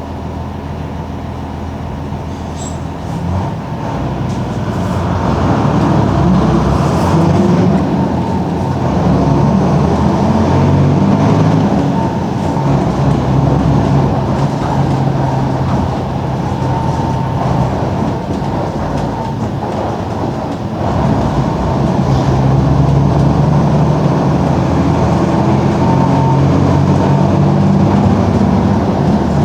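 Mercedes-Benz OF-1721 bus's OM-366LA six-cylinder turbo diesel running under way. The engine note grows louder a few seconds in as it pulls, then twice eases off briefly and picks up again, once near the middle and once about two-thirds through.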